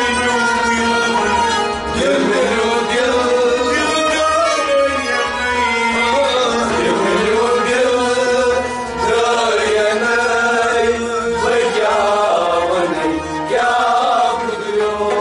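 Kashmiri Sufi devotional song (kalam) sung by men to a harmonium drone with rabab and other string accompaniment, a steady continuous melody.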